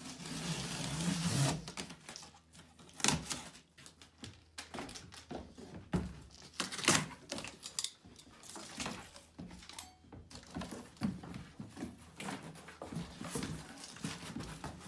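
Unpacking a boxed quail cage: a rough tearing of packaging for about the first second and a half, then scattered knocks, clicks and rattles as the parts are handled.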